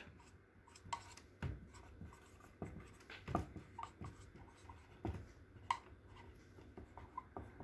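Dry-erase marker writing on a whiteboard: faint scratching strokes, with short squeaks, coming in many separate strokes as the letters are formed.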